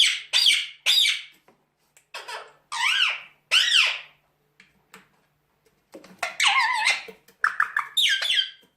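Pet parrot giving a string of short, high-pitched squawks and whistled calls, some swooping up and down in pitch, with a longer warbling call about six seconds in.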